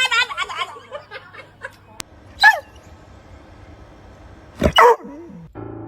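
Dog making odd vocal noises: a warbling whine at the start, a short falling yelp about two and a half seconds in, and two loud barks near the end. Music starts just before the end.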